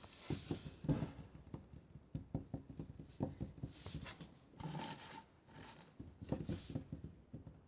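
Close-miked breathy exhales and faint whispered sounds, mixed with irregular soft taps and clicks.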